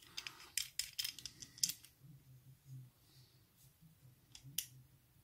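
Small hand tube cutter turned around an aluminium capacitor can, its cutting wheel scraping and clicking as it scores the can to cut the top off. There is a run of quick scraping clicks in the first two seconds and a single sharp click later.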